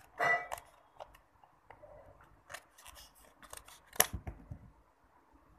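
Stiff plastic blister packaging of a micro SD card crackling and clicking as it is handled. There is a short burst of crackle just after the start, scattered small clicks, and one sharp click about four seconds in.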